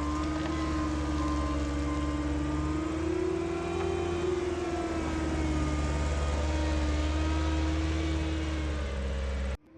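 Engine of a bucket machine spreading gravel, running steadily under load with its pitch rising slightly around the middle and settling back; it cuts off abruptly near the end.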